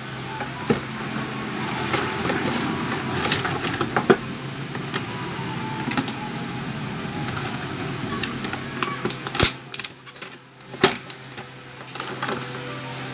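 Earphone packaging being handled: a cardboard box and a clear plastic tray rustling, with scattered clicks and taps and two sharp clicks a little after the middle. A steady low hum runs underneath.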